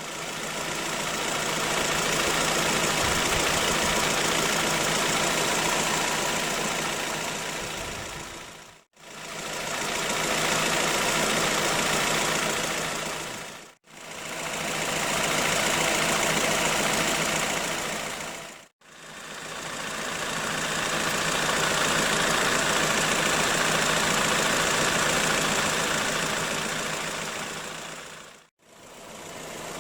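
Steady engine and road noise from a running car, a continuous hiss-like rumble. It comes in several stretches, each fading out and back in.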